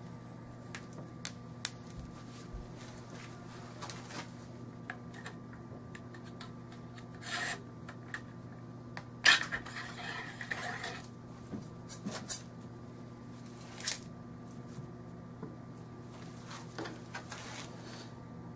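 Metal parts of a Norinco SKS rifle being stripped and handled on a towel-covered bench: scattered small clicks and clinks, with a sharp knock about nine seconds in followed by about two seconds of rubbing and scraping. A steady low hum runs underneath.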